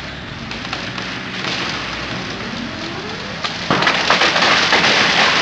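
A big linden tree cracking as its trunk gives way, then coming down. A little past halfway its crown crashes through the neighbouring branches in a sudden loud rush of snapping and breaking wood.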